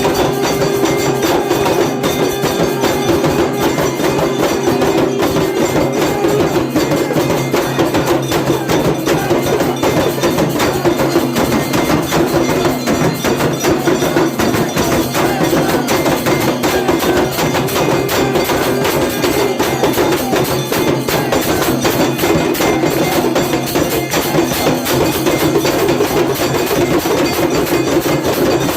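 Temple aarti percussion: bells and other metal and wooden percussion struck rapidly and without pause, in a dense, steady clangour over a continuous droning tone.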